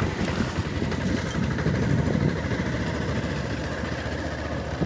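Motorcycle engine running at low speed as the bike rides over a rough dirt track, with a steady rumble and irregular low knocks from the bumps.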